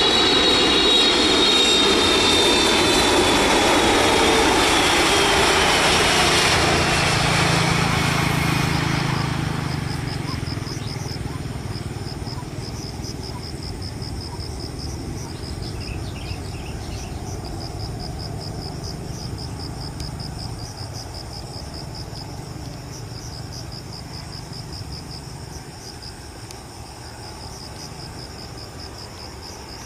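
Boeing 777-300ER's GE90 jet engines passing low on landing approach: a loud rushing whine, falling in pitch, that fades over about nine seconds into a distant low rumble. Insects then chirp in a fast, steady pulsing rhythm.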